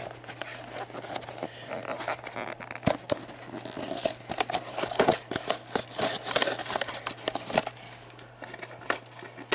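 A cardboard booster-pack box being handled and opened by hand: crinkling and tearing of card and packaging with many small clicks and rustles, busiest in the middle.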